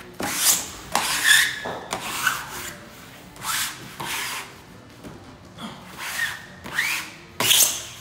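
Hands and a plastic wallpaper smoother rubbing and sliding a wallpaper mural panel against the wall while its pattern is matched at the seam. About ten irregular rubbing strokes, the loudest near the start and just before the end, with a few short squeaks.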